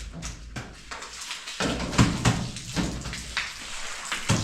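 Kitchen cleaning sounds: irregular knocks and clatter of things being handled, with splashing water.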